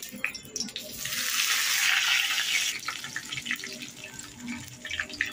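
Curry leaves sizzling in hot oil with mustard seeds in a kadhai. A loud burst of sizzle comes about a second in and eases into lighter crackling.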